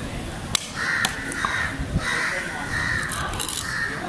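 Crows cawing over and over in short, harsh calls. A few sharp knocks come from a knife cutting tuna on a wooden chopping block.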